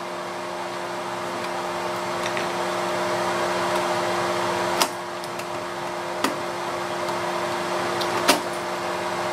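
A screwdriver clicks sharply three times against the screw terminals of a power supply's terminal block while a ground wire is fastened, over a steady mechanical background hum.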